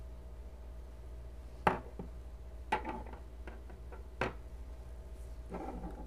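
Metal balisong knives being handled and set down on a wooden tabletop: three sharp knocks about a second apart, the first the loudest, with a few lighter ticks between.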